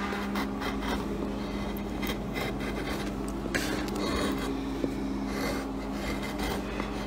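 Irregular short scraping and rubbing strokes on a wooden relief carving, over a steady low hum.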